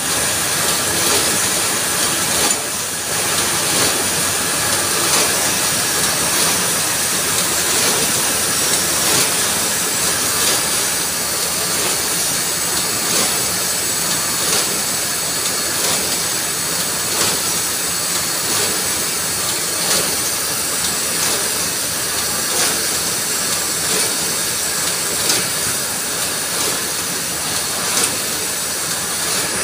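Steady loud running noise of industrial paper-bag making machines in a factory hall: an even hiss and hum with frequent faint clicks.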